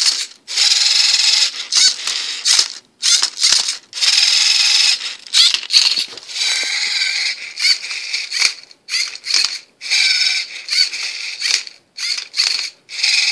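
LEGO Mindstorms NXT servo motors whirring in repeated short spurts, each about half a second to a second with brief gaps, as the MindCuber robot turns and flips a Rubik's Cube through its solving moves. Sharp clicks and clacks of the cube and the LEGO parts come between the spurts.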